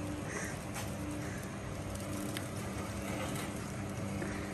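Gas-fired tandoor burner running with a steady rush and a faint low hum, with a few faint clicks.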